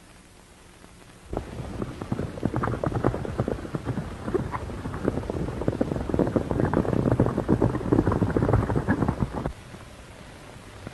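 Hoofbeats of several horses galloping. A dense, uneven clatter of hoof strikes starts suddenly about a second in and stops abruptly near the end.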